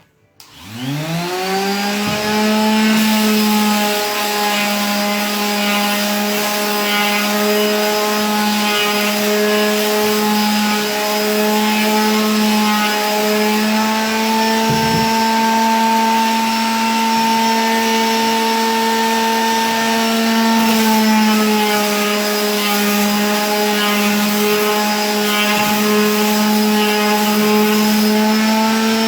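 An electric sander switching on, its motor whine rising in pitch over about a second, then running steadily as it sands a gesso-primed canvas. The pitch sags briefly about twenty seconds in, then recovers.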